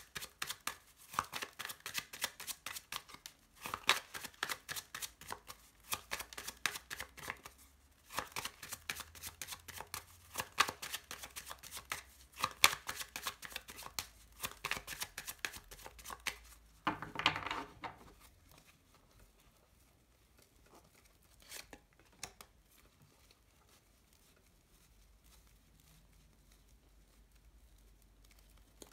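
A deck of oracle cards shuffled by hand: rapid, dense papery clicking and slapping of cards for about seventeen seconds, then it stops, leaving only a few soft card sounds as the deck is spread into a fan.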